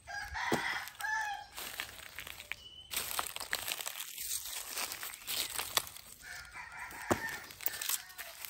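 A rooster crowing twice, once at the start and again about six seconds in, over a steady crackle of dry leaves and twigs being walked on.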